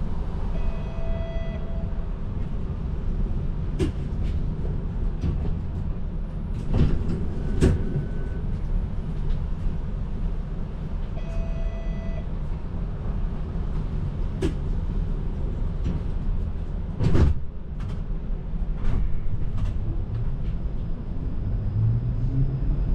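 TTC streetcar running along its rails, heard from inside: a steady low rumble with a handful of sharp knocks and clunks, and two short electronic tones about ten seconds apart. Near the end a motor whine rises in pitch as the car picks up speed.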